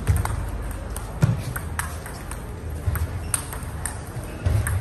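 Table tennis rally: the ball clicking sharply off paddles and the table in quick succession. A few louder low thuds come in between the clicks.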